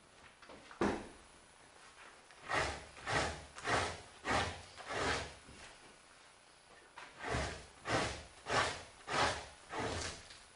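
Two-handled fleshing knife scraping fat off a raccoon pelt stretched over a wooden fleshing beam. There is one sharp stroke about a second in, then two runs of about five scrapes each, a little over half a second apart, with a pause between the runs.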